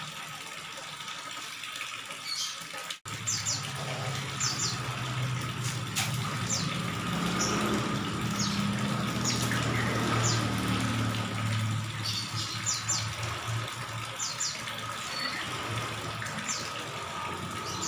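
Water from a hose splashing steadily into a koi tank, with heavy air bubbling and a low hum joining about three seconds in. Short, high chirps, like small birds, come again and again.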